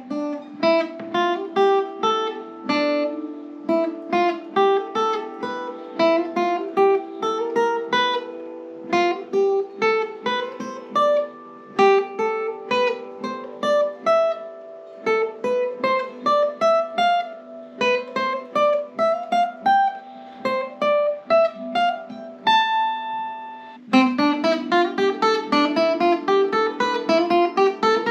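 Acoustic guitar picked fingerstyle, single notes in repeated climbing patterns as a finger-speed exercise. A chord rings out briefly near the end, then the notes come louder and faster.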